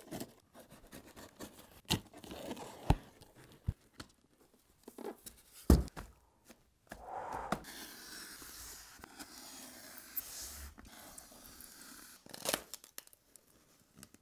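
A knife slitting packing tape on a cardboard box, then cutting the taped seam of a polystyrene cooler box. Several sharp knocks from the boxes being handled, the loudest near the middle, then a longer stretch of tearing and scraping in the second half.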